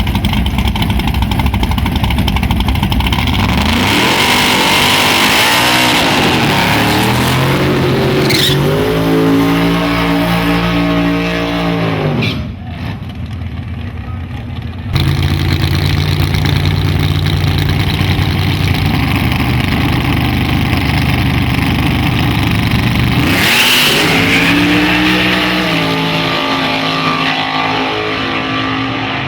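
Street-class drag cars accelerating hard down the drag strip at full throttle, the engine pitch climbing and dropping as they rev and shift. The sound drops briefly to a quieter stretch near the middle, then a loud engine run picks up again.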